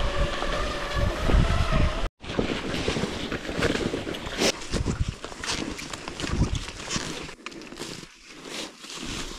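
Wind buffeting the microphone while cross-country skiing over snow. A steady humming tone sounds for about the first two seconds, then the sound cuts off abruptly. After that come rushing noise with scattered scrapes and taps, quieter near the end.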